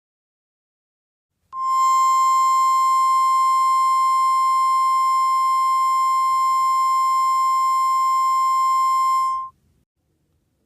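Emergency Alert System attention signal: one loud, steady, single-pitched tone, starting about a second and a half in and held for about eight seconds before cutting off. It announces that an emergency message follows.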